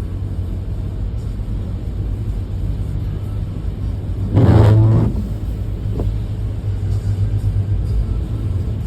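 Steady low rumble of a car driving. About four and a half seconds in, a short, louder pitched sound lasts about half a second.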